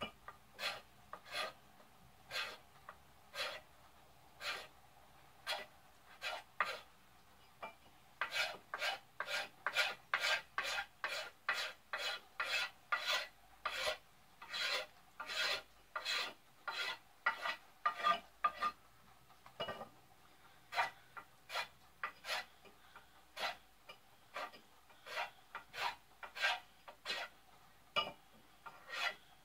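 A knife blade scraping the factory varnish off a store-bought wooden ax handle in rough strokes: short rasping scrapes, sparse at first, then up to about two a second with brief pauses.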